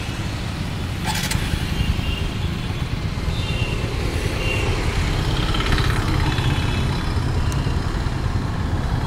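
TVS Apache RTR 160 4V's single-cylinder engine idling steadily with the bike at a standstill, a brief noise about a second in.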